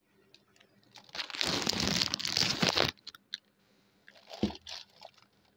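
Clear plastic wrapping crinkling and crackling for about two seconds as it is handled and pulled off, then a few light clicks and a shorter rustle.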